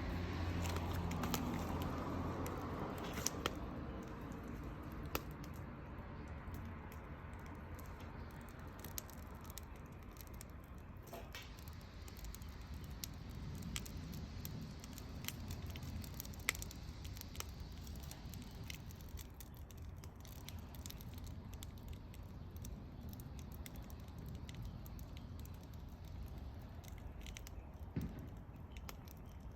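Wood fire crackling, with irregular sharp pops and snaps over a faint steady hiss. A low rumble fades away over the first few seconds.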